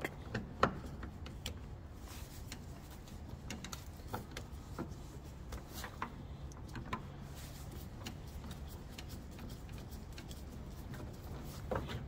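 Faint, irregular ticking clicks over a low steady hum as the outer door handle's retaining bolt is undone with a T30 Torx and the handle works loose from the door.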